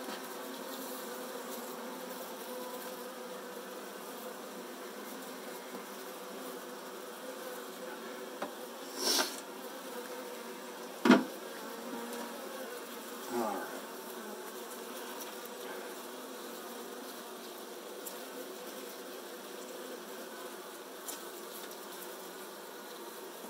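A cluster of Saskatraz honey bees buzzing steadily around an open hive. A sharp knock about eleven seconds in is the loudest sound, with a brief rustle just before it.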